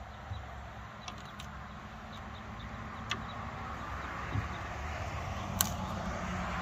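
A motor vehicle approaching, its noise swelling over the last few seconds, over a steady low hum. A few sharp clicks and taps, the loudest about five and a half seconds in.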